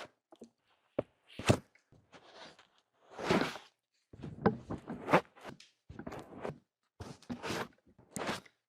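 Close-miked ASMR trigger sounds: a string of short, separate handling noises, each under half a second, cut together with brief dead-silent gaps between them.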